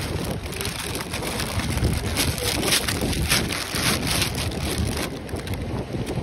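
Wind buffeting the phone's microphone, with crunching footsteps on beach sand.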